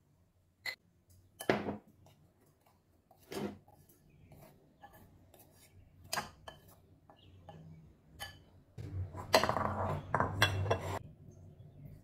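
A metal spoon clinking against a glass jar and a ceramic bowl while cornstarch is scooped into flour: a few separate sharp clinks, then a longer, louder run of clattering and scraping near the end.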